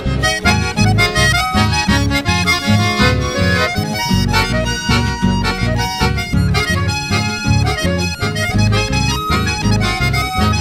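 Instrumental chamamé passage: accordion leading the melody over a steady, pulsing bass beat, with no singing.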